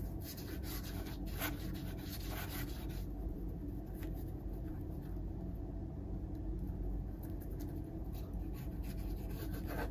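Paintbrush scrubbing acrylic paint onto a canvas board: short, scratchy brush strokes in runs during the first three seconds and again near the end, over a steady low hum.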